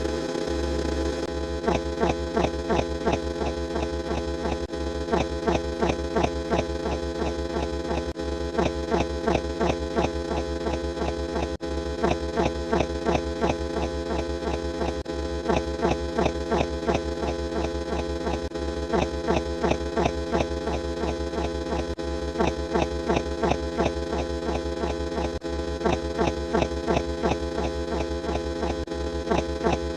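Electronic sound effect: a steady buzzing hum with a quick stutter of clicks repeating about every second and a half.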